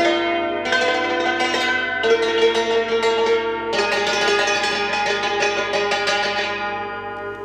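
Khim, the Thai hammered dulcimer, being played: quick struck notes on its strings ringing over one another, with a fresh strike about four seconds in, then the last notes ringing on and fading near the end.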